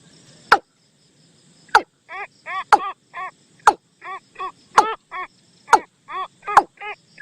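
Bird lure call of the bird known in Thai as nok toom, used as a decoy call to draw birds in. Sharp descending notes come about once a second, and from about two seconds in they alternate with quicker, quieter arched notes about three times a second.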